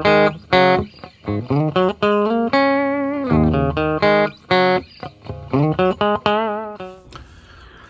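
Intro music: a plucked guitar playing a melody of separate notes, some sliding in pitch, that fades out near the end.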